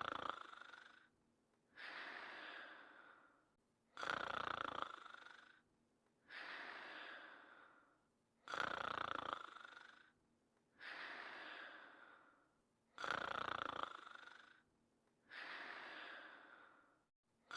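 Snoring in a steady, even rhythm: a louder, rasping snore on each in-breath followed by a softer, breathy out-breath, the cycle repeating about every four and a half seconds.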